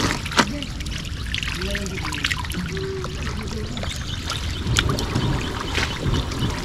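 Hundreds of small tengra catfish stranded in shallow, muddy water, flapping and splashing: a continuous crackle of small splashes and trickling water, with one sharper splash about half a second in.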